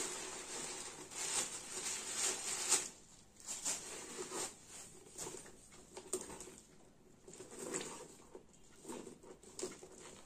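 Paper rustling and crinkling as stuffing is pulled out of a new handbag, with handling noises from the bag. The rustling is densest in the first three seconds, then comes in short scattered bursts.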